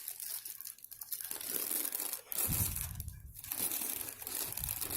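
Packaging crinkling and rustling as a camera kit lens is unwrapped by hand, with dull handling bumps from about halfway through.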